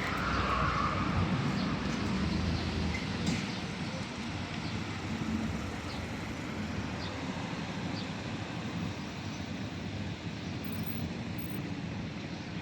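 Steady street traffic noise, a continuous hum with a few faint clicks.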